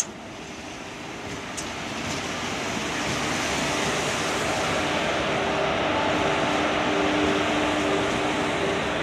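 Passenger train arriving behind a WAP-4 electric locomotive, the locomotive and coaches rolling past close by with a steady rumble and rattle of wheels on rail. The sound grows louder over the first few seconds as the train draws level, and a few steady tones sound over it in the second half. A brief click sounds at the very start.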